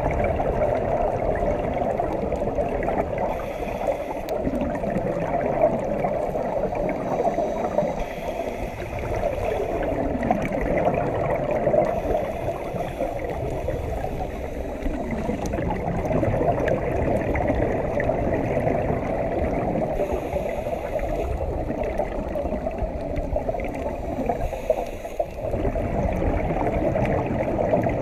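Underwater sound picked up through a camera housing: a steady rushing, gurgling water noise, with a low drone whose pitch slowly falls now and then.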